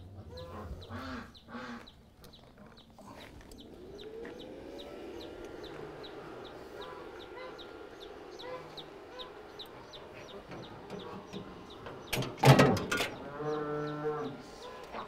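Farmyard chickens clucking, with a loud rooster call about twelve seconds in that is held steady for about a second.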